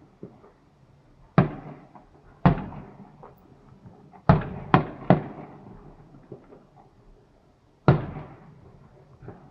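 Fireworks shells bursting: about six sharp bangs at uneven intervals, three of them close together in the middle, each trailing off in an echo.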